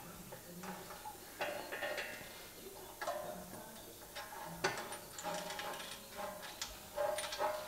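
Scattered light metallic clicks and clinks of bolts, tools and a mounting bracket as an auxiliary coolant tank is bolted up under the vehicle. The knocks come at irregular moments, a few with a brief ring.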